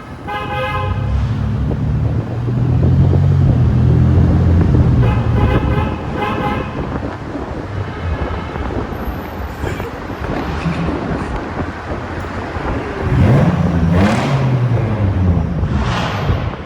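Police-style siren on a Toyota 4Runner being tried out: two horn-like blasts, one right at the start and one about five seconds in, then siren tones sweeping up and down near the end, over freeway road noise.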